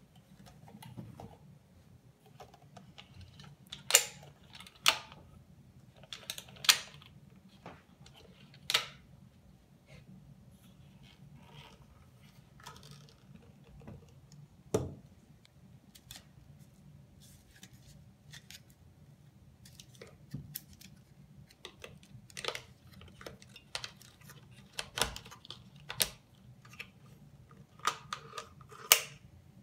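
Sharp clicks and clacks of a mapping quadcopter's folding arms and fittings being handled, unfolded and snapped into place, one to several seconds apart, over a faint low hum.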